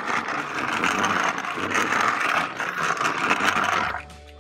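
Plastic toy construction truck and trailer rolling across a hard surface, a steady scraping rolling noise that stops shortly before the end.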